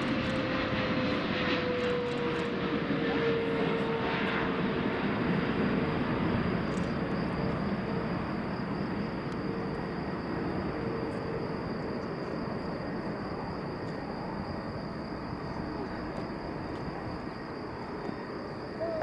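Boeing 777 freighter on final approach, its GE90 engines running at low approach power. The engine whine falls slightly in pitch over the first few seconds, and the noise fades slowly as the jet descends toward the runway.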